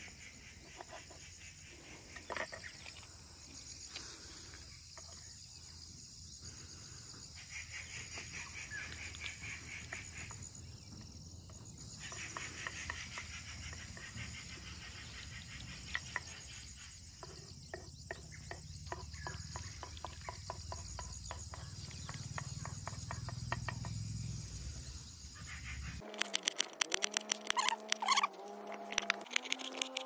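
Riverside countryside ambience: insects chirring steadily with birds calling, including a rapid clicking trill in the middle. Near the end a quick run of sharp, loud knocks.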